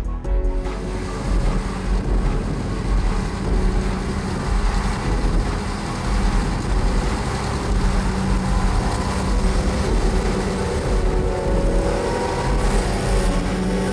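New Holland FR500 self-propelled forage harvester running steadily under load as it chops grass, a dense mechanical drone with a low rumble and a hiss.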